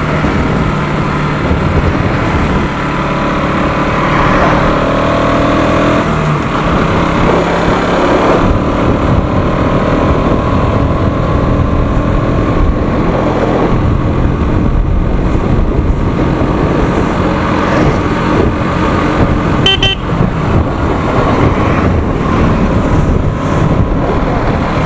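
Motorcycle engine running steadily while riding along a road, with wind rushing over the helmet-mounted camera's microphone.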